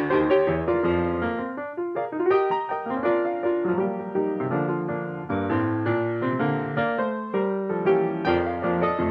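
Background piano music, a steady series of struck notes and chords.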